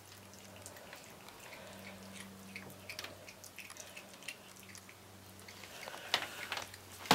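An animal chewing and gnawing a chicken leg: faint, irregular small clicks and wet crunches, with a couple of louder clicks near the end. A low steady hum runs underneath.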